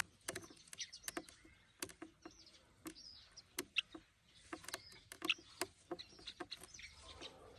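Young hand-reared bird giving a few faint, short, high cheeps, among scattered light taps and scratches.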